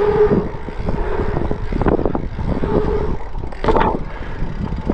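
Bike rolling fast over an asphalt pump track: tyre hum on the asphalt with knocks and rattles, and strong wind buffeting the microphone.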